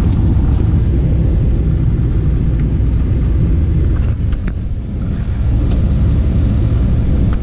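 Steady low rumble of a car in motion, engine and road noise with no clear pitch.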